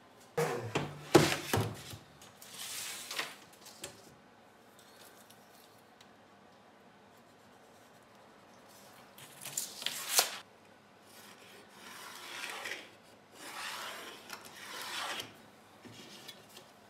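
Bench-marking sounds: a clattering rattle with sharp knocks near the start, typical of a steel tape measure snapping back, then a brief scrape about ten seconds in and a few scratchy rubs of a carpenter's pencil drawn along a steel ruler on a plywood sheet.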